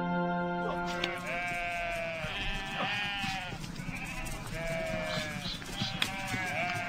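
A large flock of sheep bleating, many calls overlapping. A held music chord fades out about a second in.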